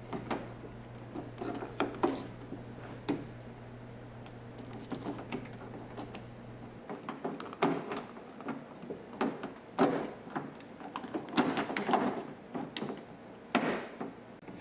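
Irregular clicks, knocks and scrapes of a replacement exterior car door handle being worked into its opening in the door, over a low hum that stops about halfway through.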